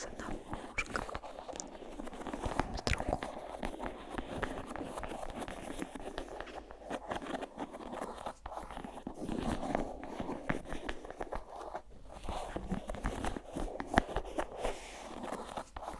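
Layered close-miked ASMR trigger sounds: a continuous crackling and rustling texture scattered with many small sharp clicks.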